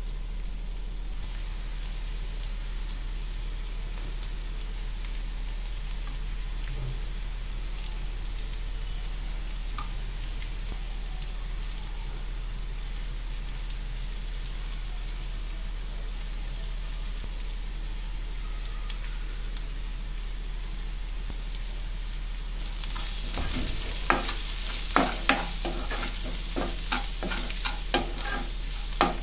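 Chopped onions, green chillies and curry leaves sizzling steadily in hot oil in a non-stick kadai. From about 23 seconds in the sizzle grows louder, and a steel spoon knocks and scrapes against the pan as the masala is stirred.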